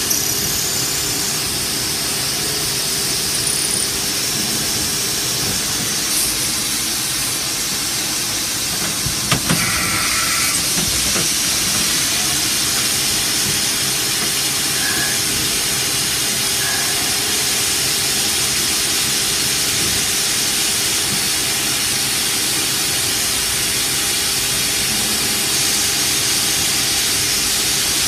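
CNC milling machine running, its spindle turning a small cutter that machines a linen phenolic cylinder held in a rotary fixture: a steady, hissing machine noise. A single sharp click sounds about nine seconds in.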